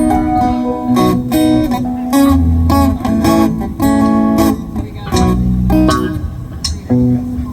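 Live band music led by guitar: a run of picked notes and chords. The level drops near the end.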